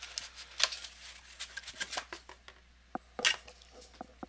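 Cardboard box and its packaging being handled as a hot sauce bottle is taken out: light rustling with a few scattered clicks and knocks, the loudest about three seconds in.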